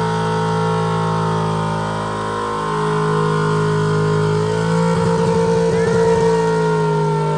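Chevrolet El Camino's engine held at steady high revs during a burnout, rear tyres spinning on the pavement, with a brief wavering in the engine note about five seconds in.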